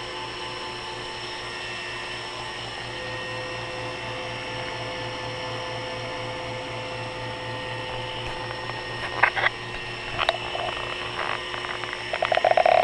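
Taig CNC mill's spindle and cutter running with a steady whine during light finishing passes. A few sharp clicks come in the last few seconds, and a short buzzing rattle at the very end.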